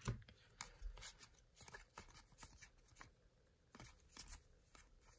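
Baseball trading cards being flipped one by one through a stack in the hands: a string of faint, irregular clicks and brushes of card stock against card stock.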